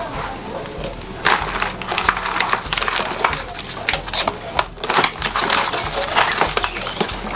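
Rigid plastic mesh basket crackling and clicking as hands pull and bend its lid open, a run of irregular sharp crackles.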